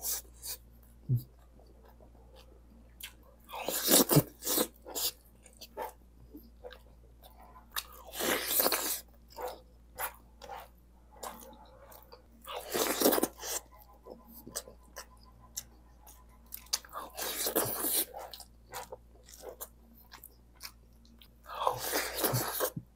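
Close-miked chewing and mouth sounds of someone eating rice and beef masala curry by hand: many small wet clicks and smacks, with a louder noisy burst of about a second every four to five seconds.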